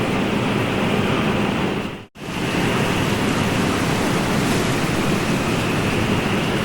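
Steady wash of ocean surf noise, with no distinct wave breaks, cutting out completely for a split second about two seconds in, then resuming at the same level: an edit splice in the looped recording.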